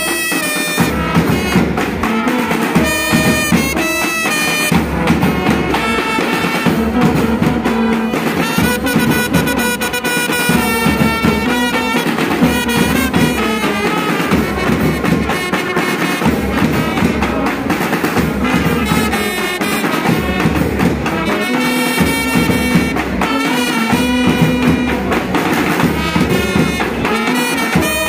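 Kerala band melam brass band playing: trumpets and saxophones carry the melody over marching side drums, with a low brass bass part, in a steady beat.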